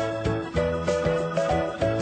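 Cheerful background music with a steady beat, a bass line under a bright melody.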